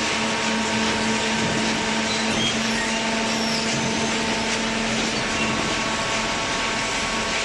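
Cardboard baler running: a steady, unbroken machine hum with a constant low tone over a rushing noise.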